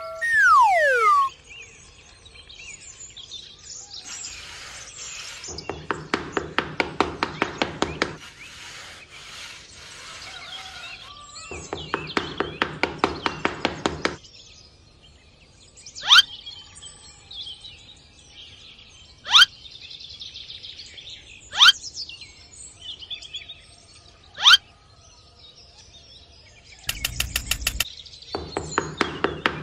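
Birds calling: light twittering, then four loud, sharply rising calls a few seconds apart. In the first half, two stretches of rapid rhythmic pulsing calls come in, and again near the end.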